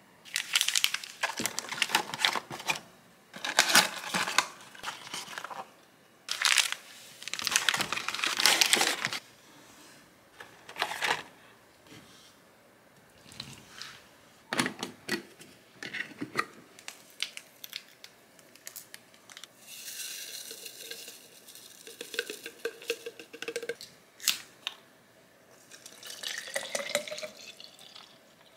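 Plastic packaging crinkling and tearing in loud bursts, then scattered handling clicks. Near the end, water is poured from a plastic bottle into a drink bottle, rising in pitch as the bottle fills.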